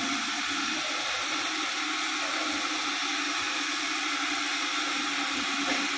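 Spice-processing plant machinery running steadily: an even rushing noise with a steady low hum underneath.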